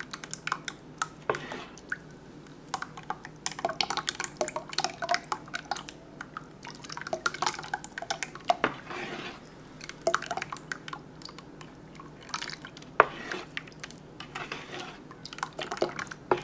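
Metal ladle stirring thin bánh xèo (Vietnamese crepe) batter in a mixing bowl, with frequent small clinks and knocks of the ladle against the bowl and batter pouring and dripping back in from the lifted ladle as its thickness is checked.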